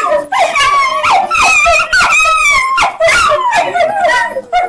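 Two schnauzers and a miniature dachshund howling and yipping together, with several wavering howls overlapping.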